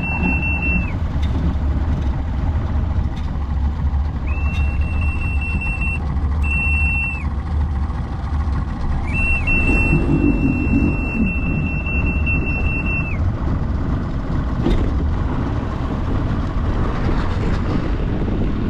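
Engine running steadily with a low rumble, while a steady high-pitched electronic beep sounds in several stretches of one to four seconds, the longest about nine seconds in.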